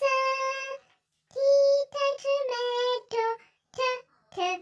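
A child's voice singing, unaccompanied: one held note, then after a brief pause a run of about six short sung syllables separated by silences.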